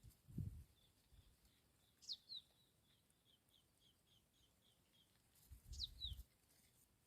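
A small bird giving sharp, falling chirps in pairs, about two seconds in and again near the end, with a run of faint quick chirps, about four a second, in between. Low dull thumps come at the start and near the end.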